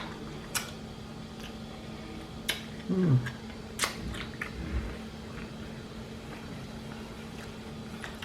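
A person eating chicken salad: wet chewing with several sharp mouth clicks, and a short falling hum of a voice about three seconds in, over a steady low background hum.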